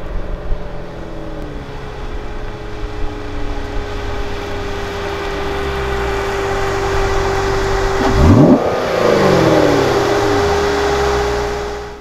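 The 2016 Corvette Stingray Z51's 6.2-litre LT1 V8 accelerating toward the camera, its engine note climbing and dropping back through several upshifts. It grows louder until the car passes close by about eight and a half seconds in, the pitch falling sharply, then fades as it pulls away. A steady thin whine runs underneath.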